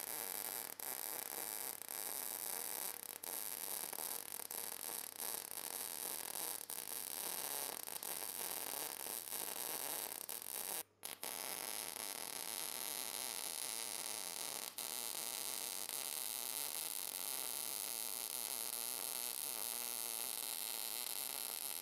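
Cebora Pocket Pulse synergic inverter MIG welder's arc crackling steadily while welding two plates together, stopping briefly about eleven seconds in and then starting again.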